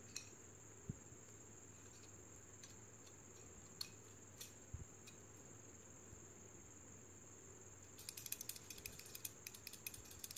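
Faint metallic clicks of the steel frame and small parts of a Tokarev TT-30 pistol being handled: a few single clicks, then a quick run of rapid ticking clicks from about eight seconds in.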